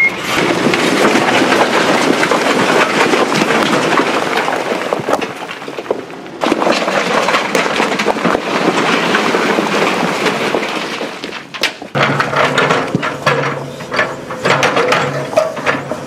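Load of soil and stones pouring and tumbling out in a continuous rushing, crackling clatter, with a brief lull about six seconds in. In the last few seconds a low machine engine hum and scattered knocks take over.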